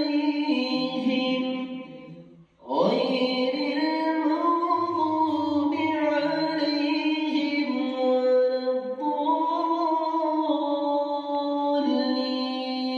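A man reciting the Quran in melodic tajweed style over a microphone, drawing out long held notes. He breaks off for a breath about two seconds in, then begins a new long phrase with a rising swoop.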